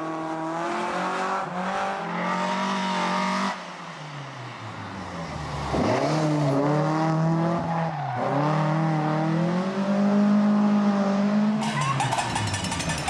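Volvo rally car's 16-valve DOHC engine revving hard at full throttle, its pitch climbing and dropping with each gear change. The sound cuts off a few seconds in, then the car comes back up to speed, with another shift and high revs near the end.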